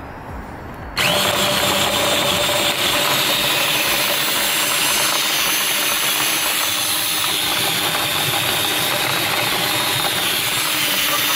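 Ryobi cordless drill driving a grain mill, crushing Pilsner malt. It starts suddenly about a second in and then runs steadily at full speed, a motor whine over the grinding of grain.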